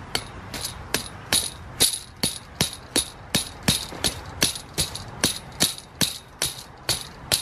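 Hammer repeatedly driving a metal tent stake into the ground at the base of a chain-link fence: a steady run of about nineteen sharp strikes, roughly two and a half a second, each with a bright metallic ring.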